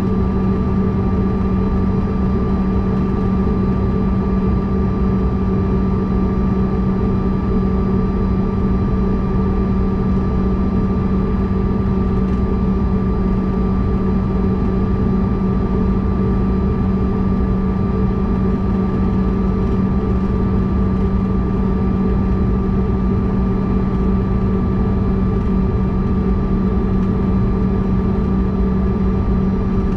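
Cabin noise of a CRJ-200 regional jet taxiing, its rear-mounted GE CF34 turbofans at idle: a steady low drone with a constant high whine over it.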